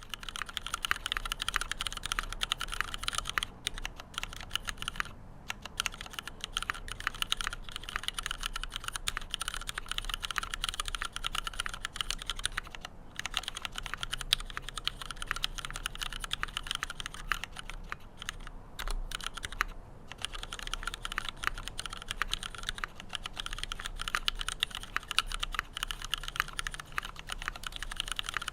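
Fast, continuous typing on a heavy aluminium-and-brass custom mechanical keyboard fitted with Cherry-profile PBT keycaps, a dense run of key clicks with a few short pauses. The build is stock: switches and spacebar unlubricated, no foam in the case.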